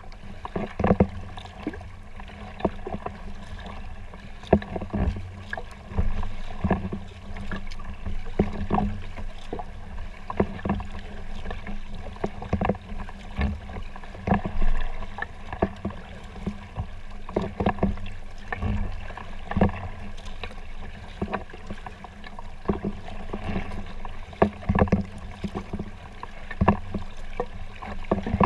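Kayak paddle strokes dipping and splashing in the water about every one to two seconds, with water sloshing along the hull of a folding kayak.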